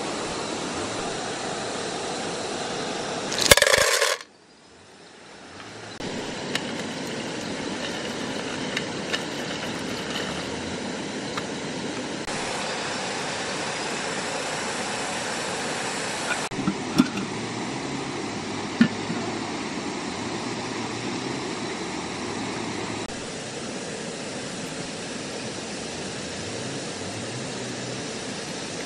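Steady rushing of a shallow forest stream. A loud, sharp burst about three and a half seconds in is followed by a brief hush. A few light clinks come around the middle, from snails in a metal pot.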